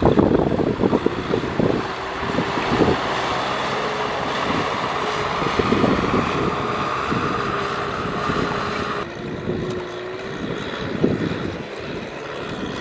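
Tractor engine running steadily under load while ploughing through mud, with short knocks or splashes throughout and wind on the microphone. The sound changes abruptly about nine seconds in.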